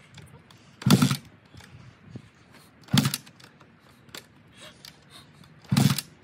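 Honda CRF250X's single-cylinder four-stroke engine being kick-started three times, about two seconds apart. Each kick is a short burst as the engine spins over and fails to catch.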